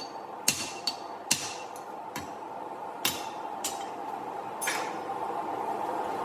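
A hand hammer strikes steel about six times at an uneven pace, each blow ringing, consistent with driving a drift through the punched eye of a forged hammer head. A steady background roar grows louder toward the end.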